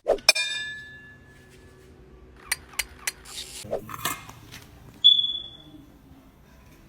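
Hard dish clinking: a sharp ringing clink at the start, a few light clicks and taps in the middle, then one clear ringing ping about five seconds in.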